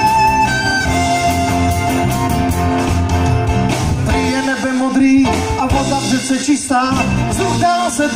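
Live acoustic country band playing: a fiddle leads the melody over strummed acoustic guitar and a bass line. About halfway through, a male voice comes back in singing the next verse over the band.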